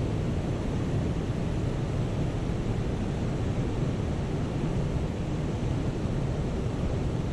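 Steady rushing of river water pouring over a low dam's spillway and churning below it, an even noise without any pitched tone or break.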